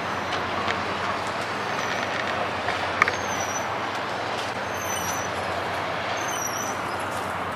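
Steady hum of city road traffic, with a single sharp click about three seconds in.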